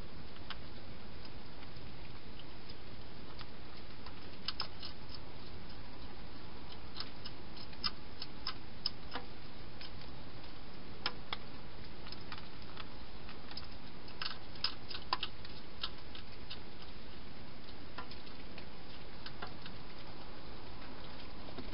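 Wild hedgehog crunching dry food inside a plastic feeding station: irregular clusters of sharp clicks over a steady hiss.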